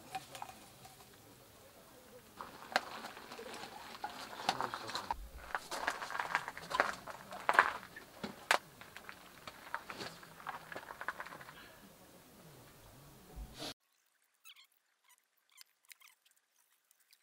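Spicy chicken stew sizzling in a cast-iron skillet on a camp gas burner, with many sharp clicks of utensils against the pan. Near the end it drops abruptly to a few faint clicks.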